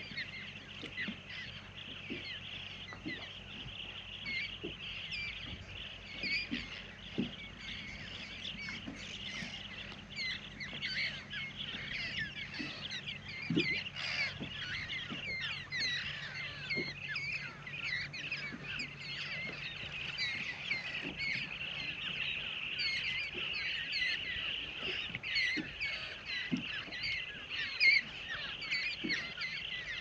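A large flock of parrots calling at dusk: a dense chorus of many short, overlapping squawks. A low steady hum runs beneath and fades out about two-thirds of the way through.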